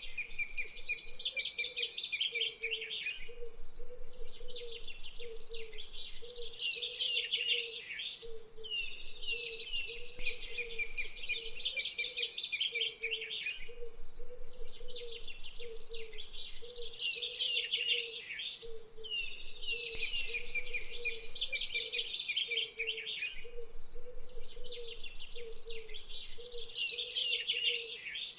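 Birds chirping and singing in quick, dense bursts of a few seconds each, over a low note that pulses about twice a second throughout.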